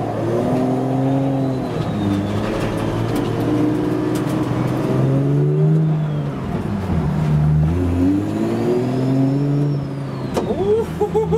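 Nissan S14's swapped Toyota 1JZ turbocharged straight-six, heard from inside the cabin, pulling away at low revs. Its pitch rises and drops about four times as it shifts up, with a faint high whistle rising and falling with the revs.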